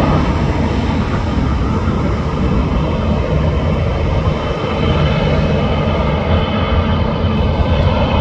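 Airliner's engines running loud and steady, a deep rumble with faint high tones over it.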